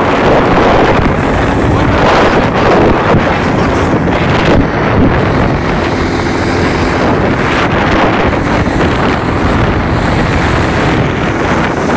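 Wind buffeting a phone microphone on a moving off-road vehicle, with the vehicle's engine running underneath.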